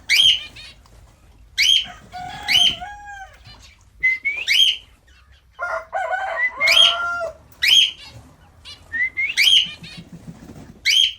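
Lutino cockatiel calling: sharp rising chirps repeated every second or two, with two stretches of lower warbling notes about two and six seconds in.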